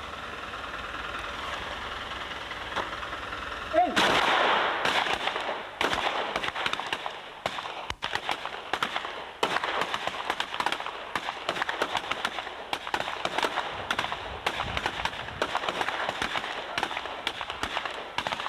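A squad of pistol shooters firing at the same time in a timed field-shooting series: a fast, irregular string of overlapping shots, several a second, starting about four seconds in.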